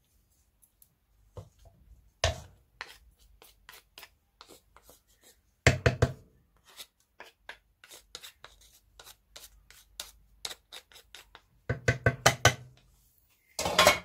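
Slotted spoon scraping and tapping in a pan of cooked basmati rice as the rice is spread and pressed level: a run of quick light scrapes and clicks, with louder bunches of knocks about two seconds in, around six seconds, and twice near the end.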